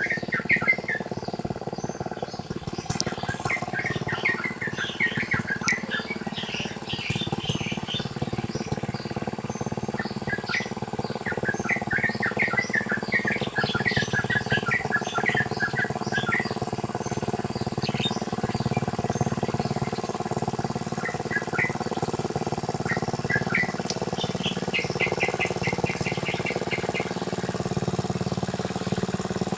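A small engine runs steadily while a rice paddy is ploughed, and over it small birds chirp and twitter in short spells. Near the end one bird gives a quick run of evenly repeated notes.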